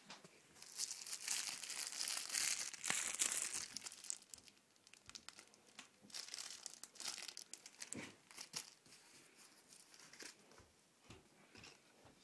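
Clear plastic wrapping on a shin pad crinkling as it is handled and pulled off. It is loudest and most continuous in the first few seconds, then comes in shorter bursts and scattered crackles.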